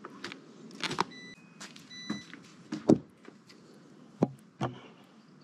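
Hands handling a carbon-fibre motorcycle helmet and a plastic intercom mount: a string of irregular clicks and knocks, the loudest about three seconds in. Two brief faint high tones come through between one and two seconds in.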